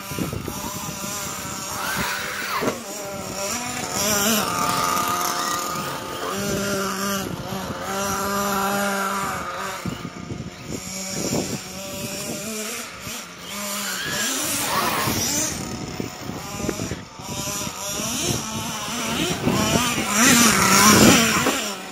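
Radio-controlled model car driving on a snowy track, its motor whine rising and falling in pitch with the throttle. It is loudest near the end.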